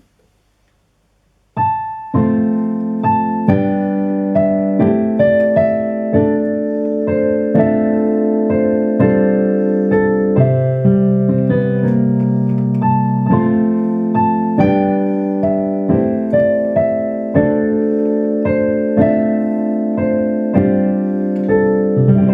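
Solo piano playing a melody over sustained chords, one note or chord struck every half second or so, starting about a second and a half in.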